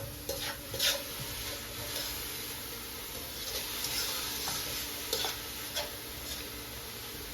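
Chopped vegetables sizzling steadily in a hot frying pan as they are stirred, with a few short scrapes of the spoon against the pan.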